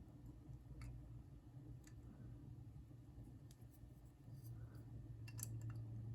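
Faint, scattered small clicks of a knife's metal parts and a screwdriver being handled and worked during reassembly, a few clicks over several seconds, over a low steady hum.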